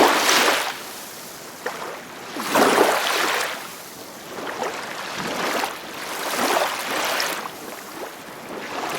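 Waves washing in, a rushing surge that swells and eases about every two to three seconds.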